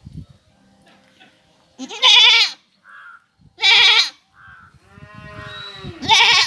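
Doe goat in labour, lying on her side, bleating loudly three times: short wavering calls about two seconds apart. Between the second and third comes a quieter, lower drawn-out call.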